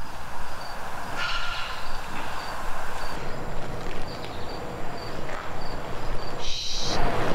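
Outdoor night ambience: a steady noisy rumble with a faint high chirp repeating about twice a second, and a short hiss near the end.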